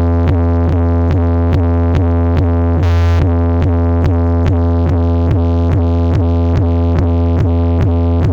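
Loud electronic music: a heavy, sustained bass note under a fast repeating synthesizer pattern of about four notes a second.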